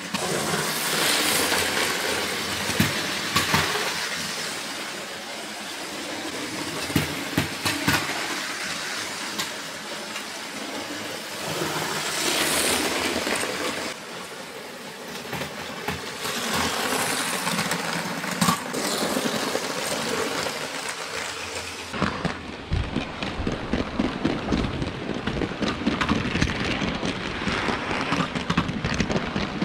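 A motorised LEGO train rolls over plastic track, its wheels clicking over the rail joints. The sound swells and fades as the train passes several times. About three-quarters through it turns to a close, muffled rattle and rumble, heard from on board the moving train.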